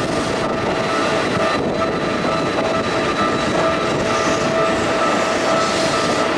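An electric commuter train running through a level crossing, with the crossing's warning bell ringing in a fast repeating pulse over the train noise.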